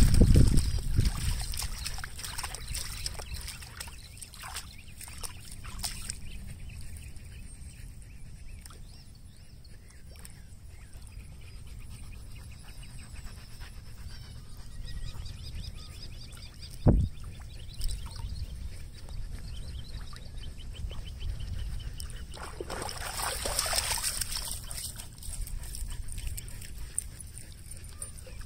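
Huskies in pond water, with faint sloshing and dog sounds over a steady low wind rumble on the microphone. There is one sharp knock about seventeen seconds in.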